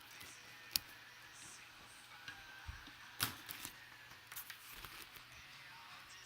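A few sharp clicks and light handling noises in a small room: one crisp click about a second in, then a louder click followed by a brief rustle, with smaller ticks after it.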